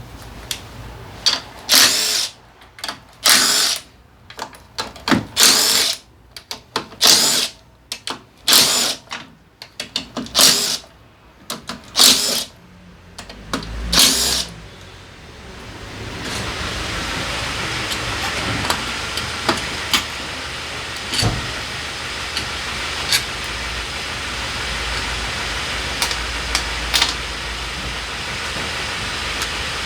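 Power tool run in about a dozen short trigger bursts, roughly one a second, then running steadily through the second half with a few clicks.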